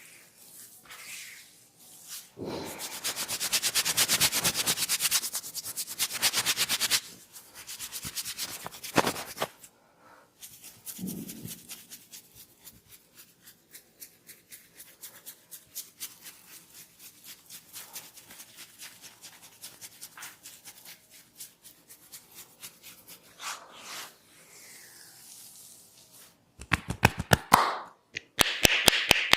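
Hands of a barber rubbing hard and fast over a customer's hair and scalp during a head massage: a rasping rub, loudest a few seconds in, then fainter, lighter strokes. Near the end it turns to rapid, evenly spaced hand taps.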